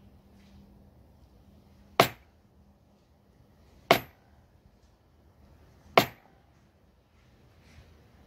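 Three sharp mallet strikes, about two seconds apart, on a metal leather-working tool held upright on a leather panel over a granite slab; each blow is a hard knock with a brief ring.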